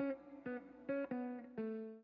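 Intro music: a short melody of single plucked notes picked one after another, the last note held and fading out.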